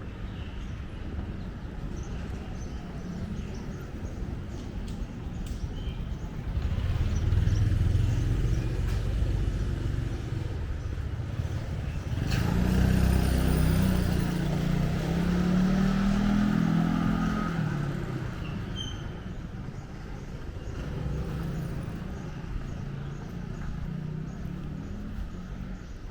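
Street traffic: motor vehicle engines passing in a steady rumble. It swells about seven seconds in and again from about twelve seconds, when an engine note rises and then falls away as a vehicle goes by.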